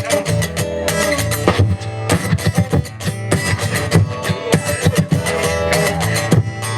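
Live band music in an instrumental passage with no singing: guitars strumming and picking rhythmically over a sustained low line.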